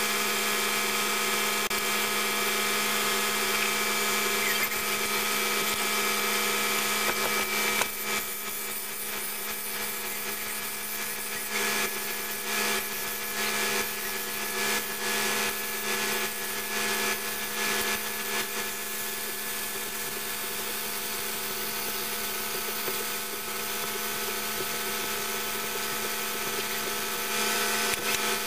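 Steady electric motor hum under the hiss of a compressed-air mini touch-up spray gun spraying paint onto a steel wheel. The hiss is continuous at first, then from about a third of the way in comes and goes in short bursts.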